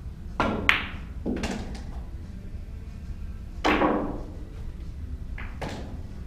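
Pool balls being struck on a cloth table: the cue tip hits the cue ball, then come sharp clacks of balls colliding. Over the next few seconds there are several more knocks of balls hitting cushions or dropping into pockets. The loudest clack comes about three and a half seconds in and rings on briefly.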